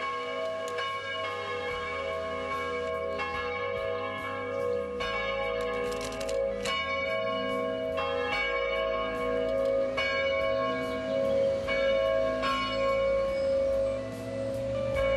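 Church bells ringing, struck again and again about once a second, their long ringing tones overlapping into a steady hum.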